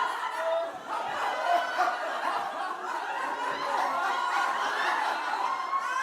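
A group of people laughing at once, many voices overlapping without a break.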